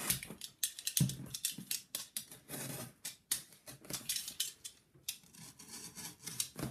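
Utility knife blade cutting through packing tape on a cardboard box: a run of irregular short scratches and clicks as the blade drags and catches along the taped seam.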